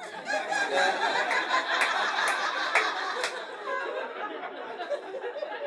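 Audience laughing together, louder at first and tapering off in the second half.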